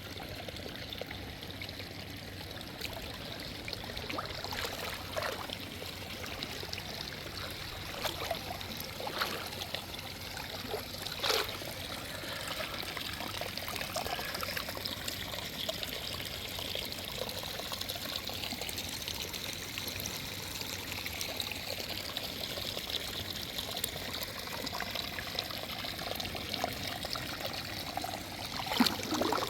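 Natural hot spring water pouring and trickling steadily, with a few brief sharper sounds, the loudest near the end.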